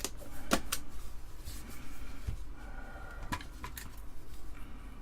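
Torx screwdriver bits and their bit set being handled: a few scattered sharp clicks and light rattles as bits are picked out and tried.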